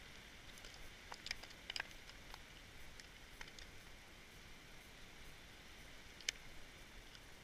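Light clicks and rattles of lures being picked through in a plastic tackle box, a cluster of them between one and two seconds in and one sharper click a little after six seconds, over a faint steady hiss.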